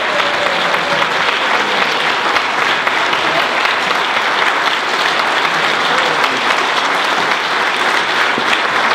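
Audience applauding steadily, many hands clapping at once in a dense, unbroken wash.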